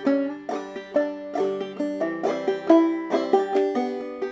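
Banjo played clawhammer style at a slow, even pace: picked melody notes and brushed strums, each ringing and fading.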